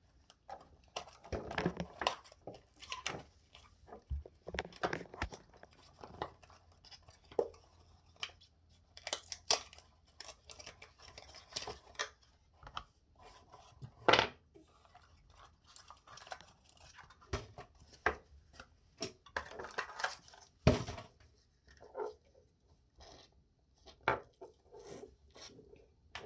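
Handling noise of an electric toothbrush's charger being unpacked: cardboard box and plastic parts rustling and scraping, with irregular clicks and taps, and a few sharper knocks as pieces are set down on the counter.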